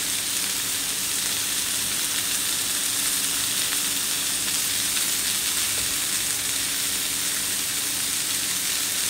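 Medium shrimp searing in a hot nonstick pan, left untouched: a steady, even sizzle, with a faint steady hum beneath it.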